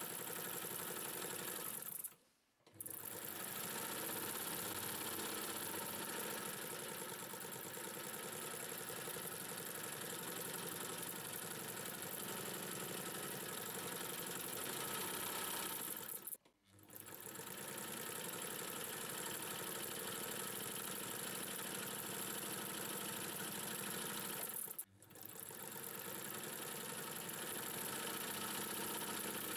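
Electric Singer 99 sewing machine, driven by its belt motor, running steadily as it sews a test seam through fabric. The sound cuts out briefly three times.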